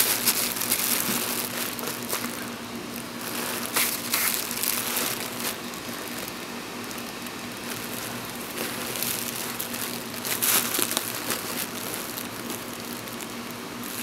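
Plastic bubble wrap crinkling and rustling as a cat shifts and climbs about in a packing box lined with it. The crinkling comes in irregular bursts, loudest near the start and about ten seconds in.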